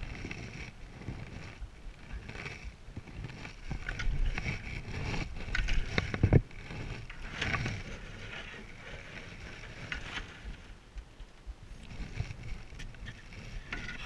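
Paddling a Selway Fisher Wren canoe: irregular swishes and splashes of a single-blade paddle in the water, with a sharp knock about six seconds in.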